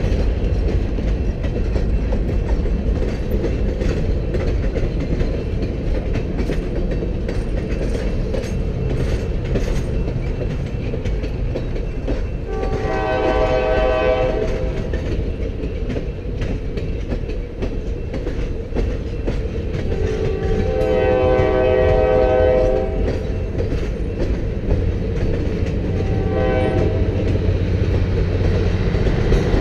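Passenger train cars rolling past at a grade crossing, a steady rumble with wheel clicks over the rail joints. A locomotive horn sounds a long blast about 13 seconds in, another long blast about 20 seconds in, and a short one near the end, like the long-long-short-long crossing signal.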